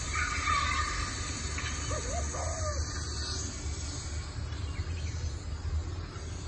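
A few faint bird chirps and short whistled glides in the first half, over a steady low hum.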